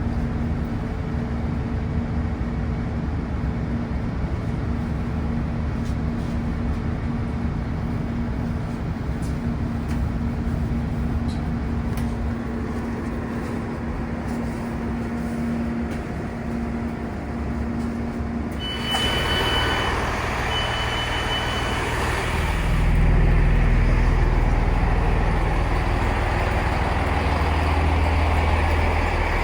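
Train-borne sound of a British Rail Class 165 diesel multiple unit, its inline-six turbo-diesel engine running with a steady hum. About two-thirds of the way through the noise jumps up suddenly, with two short high beeps, and a few seconds later the engine note deepens and gets louder.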